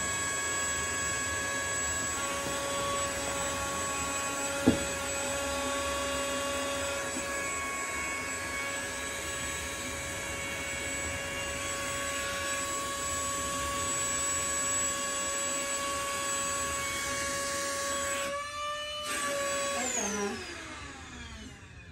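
Electric air pump running with a steady whine as it inflates an air mattress, with one sharp click about five seconds in. Near the end it falters briefly, then its pitch falls as it winds down and stops.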